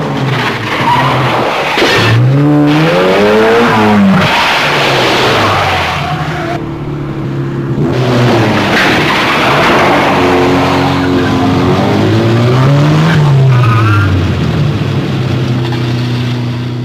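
Car engines revving hard, their pitch climbing and dropping with the throttle, over heavy tyre squeal and skidding.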